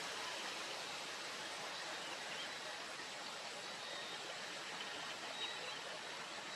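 Steady, even outdoor hiss, with no distinct event standing out.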